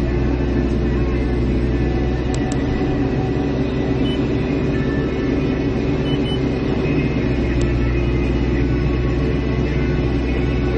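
Caterpillar digger's diesel engine running steadily at a constant pitch, with a few faint ticks over it.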